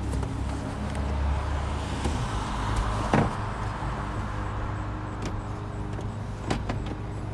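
Plastic interior trim pieces of a Tesla Model S centre console being handled and pushed into place: rustling and scraping, one sharp knock about three seconds in, then a few lighter clicks, over a steady low hum.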